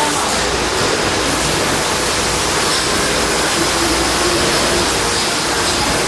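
Rotary bottle rinser for PET bottles running, its rinsing nozzles spraying water into the inverted bottles: a steady rushing hiss of water and machinery.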